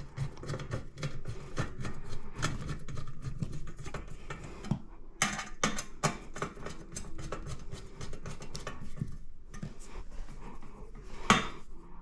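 Hand screwdriver tightening the screws that hold a ceiling fan's metal trim piece: a run of small irregular metallic clicks, scrapes and light rattles, with one sharper click near the end.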